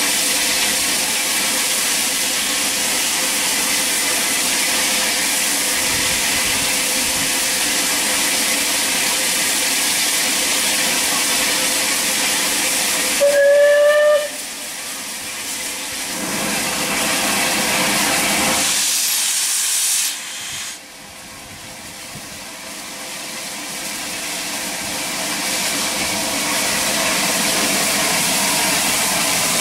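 Steam locomotive Battle of Britain class No. 34081, an unrebuilt Bulleid Pacific, hissing loudly with escaping steam, with one short whistle blast about 13 seconds in. The hiss drops off abruptly after the whistle and again about 21 seconds in, each time building back up gradually.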